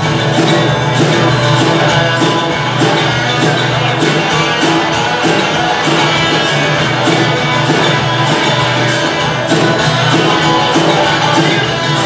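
Live rock band playing: electric and acoustic guitars over a steady drum beat.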